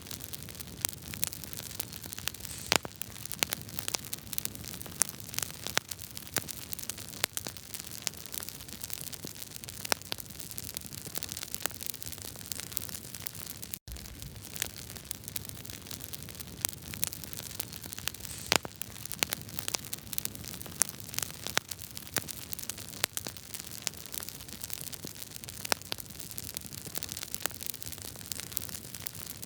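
Wood fire crackling: irregular sharp pops and snaps over a steady hiss, with a momentary cut-out about fourteen seconds in.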